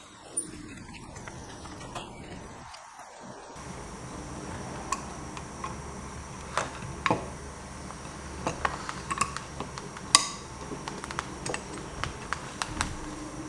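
Scattered small clicks and knocks of a screwdriver and fingers working on a Union cylinder nightlatch and its keep on a door, one sharper knock about ten seconds in.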